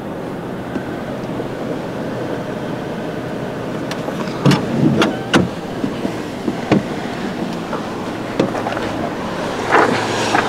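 Car doors on a 2013 Mazda 6 being handled as someone gets out and moves to the back seat: latch clicks and knocks, with a quick cluster about halfway through and single knocks later, over a steady low hum.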